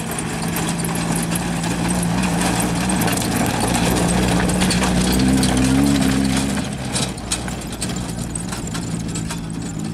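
Maruti Suzuki Gypsy rally car's engine running under light throttle as the car crawls over loose river-bed stones, its tyres crunching and clattering the rocks. The engine note rises a little about five seconds in, then eases off near seven seconds, leaving the stone clatter more prominent.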